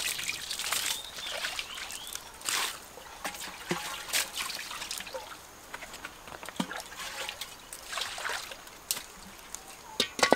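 Water ladled from a clay water jar and poured into a metal wok, splashing and trickling in several separate pours. Near the end, a sharp knock as the wok is set down on the hearth stones.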